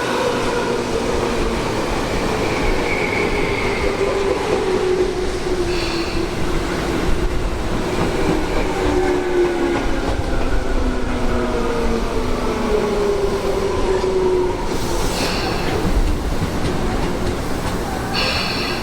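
Electric commuter train running on the line, with a tonal whine that slides slowly down in pitch over rail rumble. Short high-pitched tones sound three times, near a third of the way in, past three-quarters and at the very end.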